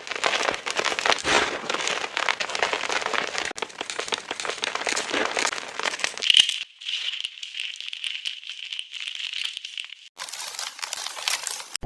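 Blocks of powdery gym chalk crunched and crumbled close to the microphone, a dense crackling for about six seconds. The audio is then edited: the crunching is narrowed to a thin, high, tinny band for about four seconds, and near the end only its high hiss is left.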